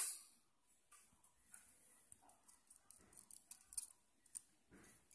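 A small motor's steady hum cuts off at the very start, then faint scattered clicks and light metallic ticks as a thin drill bit is worked out of a homemade brass chuck made from a bicycle tube valve nozzle.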